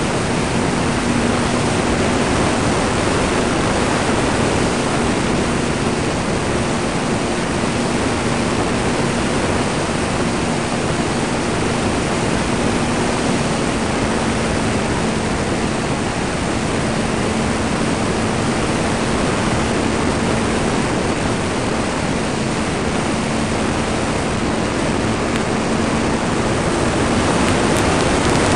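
Wind rushing loudly over the microphone of a ParkZone T-28 Trojan RC plane in flight, with the low, steady drone of its electric motor and propeller underneath, wavering slightly in pitch.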